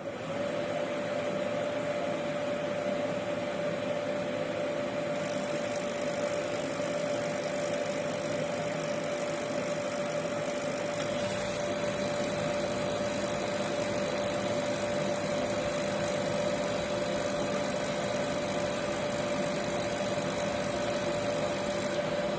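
Heating-oil burner running steadily: an even rushing noise with a constant hum.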